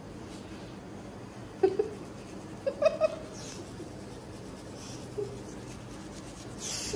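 A woman makes a few short, muffled vocal noises with a toothbrush in her mouth while someone else brushes her teeth.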